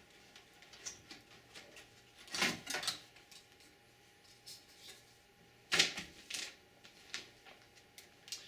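Scattered clicks, taps and light scrapes of hands and tools working on the parts inside an old desktop PC's case, with two louder clatters about two and a half seconds and six seconds in.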